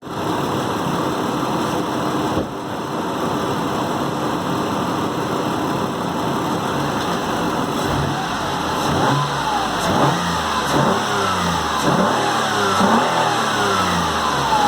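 Ford Mondeo Mk3's stock 2.5-litre 24-valve Duratec V6 running steadily, then revved repeatedly from about eight seconds in, each blip rising and falling in pitch. The intake and exhaust are unmodified, with no aftermarket air filter fitted.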